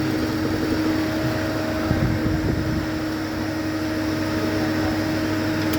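Steady machine hum with a constant mid-pitched tone, unchanged throughout.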